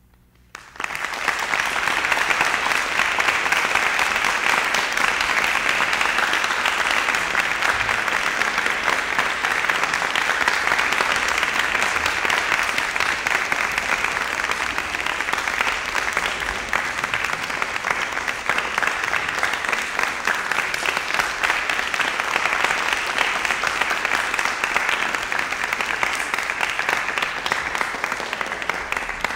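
Concert audience applauding, breaking out suddenly about a second in as the music ends and carrying on steadily, thinning slightly near the end.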